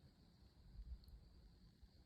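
Near silence: faint outdoor ambience with a low rumble that swells briefly just under a second in.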